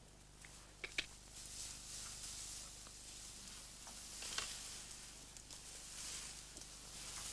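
Tall grass and clothing rustling, in soft swells of hiss, with a couple of sharp clicks about a second in and another a little after four seconds.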